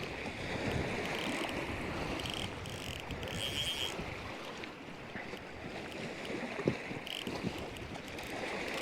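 Wind rushing over the microphone as a steady noise, with small waves lapping at the water's edge. A few short high ticking patches and faint clicks come and go.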